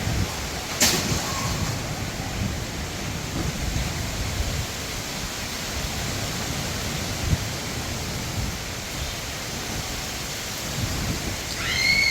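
Steady rain with wind gusting against the microphone. A sharp click about a second in, and a brief high call near the end.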